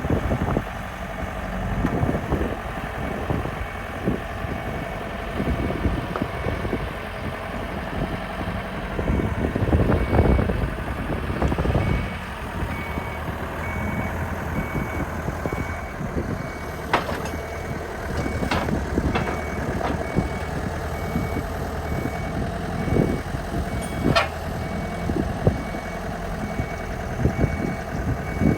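Forklift engine running as it manoeuvres, with its reversing alarm beeping at an even pace from about halfway through. A few sharp metallic knocks come in the second half.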